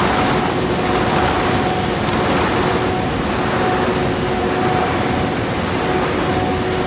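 Keshenglong K6 flexo printer line for corrugated board running in production: a loud, steady machine din carrying two steady whining tones, with a swishing that swells and fades about once a second.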